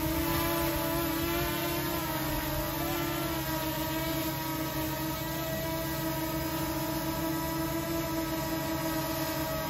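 Small folding quadcopter drone hovering close by, its propellers giving a steady high buzzing whine whose pitch wavers slightly as it holds position.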